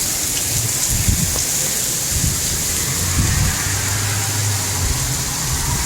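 Steady heavy rain in a windstorm, with gusts of wind buffeting the microphone in low rumbles. A low steady hum joins for about two seconds in the middle.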